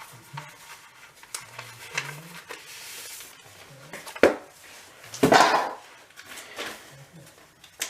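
Handling noises from a ring binder of papers being opened to take out a document: a sharp click about four seconds in and a louder clatter about a second later.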